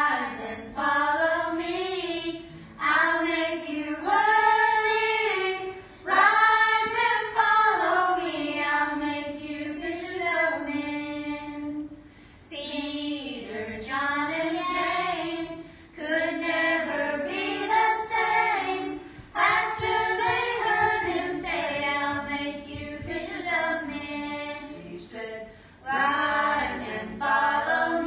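A group of children singing a worship song together, in phrases of a few seconds each with short breaks for breath.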